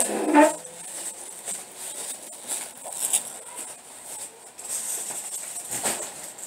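Light rattling, rustling and clatter of packaged goods being handled and carried while a car is unloaded, with a single thump near the end.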